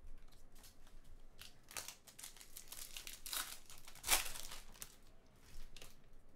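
Foil wrapper of a baseball card pack being torn open and crinkled by hand: an irregular run of crackles and tearing, loudest about four seconds in.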